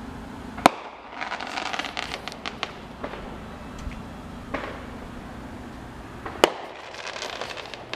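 Aerial fireworks going off: two sharp bangs about six seconds apart, each followed by a second or so of crackling, with a few softer pops in between.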